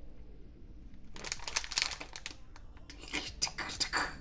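Crinkly plastic packet squeezed and crumpled in the hand: a quick run of crackles starting about a second in, pausing briefly, then crackling again.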